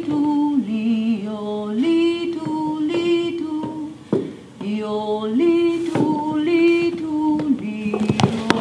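Voices singing a wordless, yodel-like 'yo-li-du-li' chant with no instruments, the tune stepping up and down between a few held notes. It breaks off briefly about four seconds in, and a few sharp clicks come near the end.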